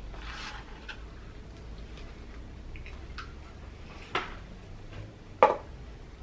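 Fries sliding out of a paper carton tipped up to the mouth, a short papery rustle, then close-up chewing with soft mouth clicks. Two sharp knocks near the end, the second louder.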